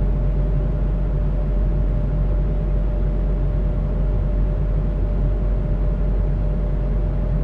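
Steady flight-deck noise of an Airbus A220-300 climbing after takeoff: a low rumble of airflow and engines with a steady hum on top.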